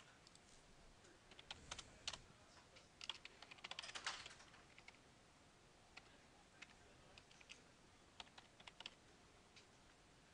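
Faint typing on a computer keyboard: a quick run of keystrokes over the first half, then slower, scattered keystrokes.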